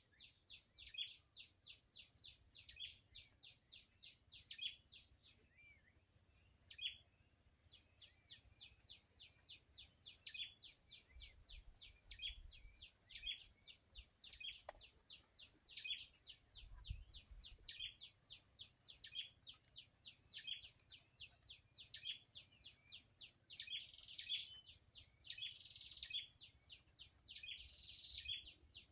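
Small birds chirping: a fast, even run of short high chirps, about five a second, with a louder call about every second. Near the end the louder calls become fuller and buzzier.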